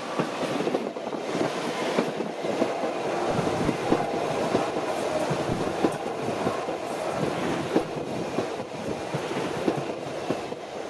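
Alstom X'Trapolis Mega electric multiple unit passing close by, a steady running noise with its wheels clicking irregularly over the rail joints.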